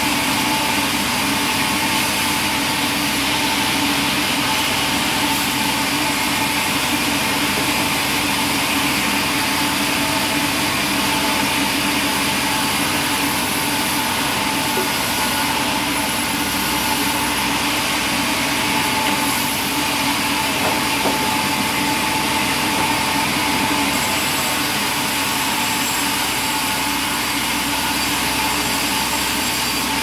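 Vertical band sawmill running steadily while a plank is fed through the blade and ripped lengthwise: a continuous even machine drone with a steady tone in it and no breaks.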